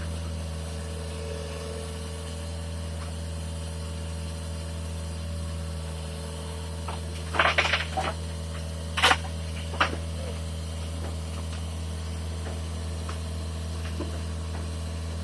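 Diesel engine idling steadily, with a low even hum. A quick cluster of sharp knocks comes about halfway, followed by two single knocks a second or two later.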